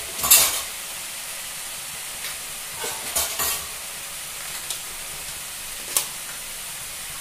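Chopped vegetables sizzling steadily as they fry in a nonstick kadai. A steel spatula clatters against the pan a few times: about half a second in, around three seconds, and near six seconds.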